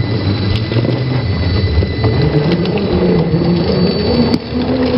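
A 1/10-scale RC rock crawler's electric motor and geared drivetrain whirring as it crawls up rock, its pitch rising and falling with the throttle over a thin steady high whine. There are a few sharp clicks, and a single knock near the end.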